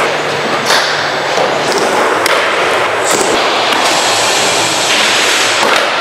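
Skateboard wheels rolling loudly and steadily across ramp surfaces, with several sharp clacks of the board and trucks, about a second in, between two and four seconds, and near the end.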